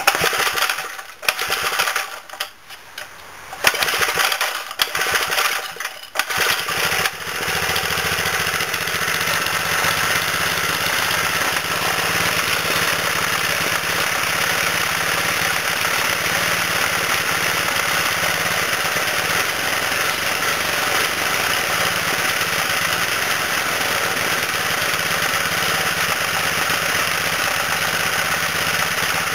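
Rebuilt 1989 Briggs & Stratton 3 hp single-cylinder engine being started: a few seconds of uneven sputters and gaps, then it catches about seven seconds in and runs steadily.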